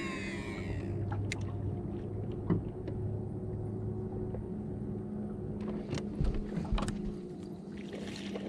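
Fishing reel whining as its spool spins out on a cast, the pitch falling and dying away about a second in; the reel is noisy after a dunking in the lake and wants oil. A few sharp clicks follow, over a steady low hum.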